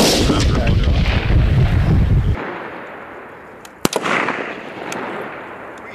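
Two shots from a 7.62 mm M110A1 semi-automatic rifle. The first, at the start, is followed by a long, heavy rolling rumble that cuts off abruptly about halfway through. The second, a sharp crack near four seconds in, trails off in a shorter echo.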